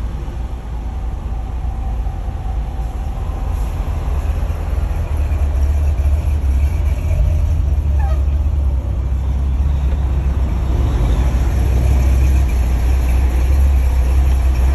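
Semi truck's diesel engine and road noise heard inside the cab: a heavy, steady low rumble that grows gradually louder.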